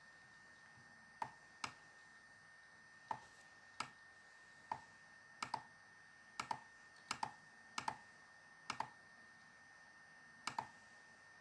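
Computer mouse clicking at an irregular pace, about seventeen sharp clicks, many of them in quick double clicks, as parts of a 3D anatomy model are selected and hidden.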